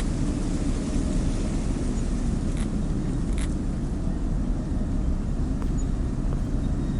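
Steady low outdoor rumble with a few faint ticks about two and a half and three and a half seconds in.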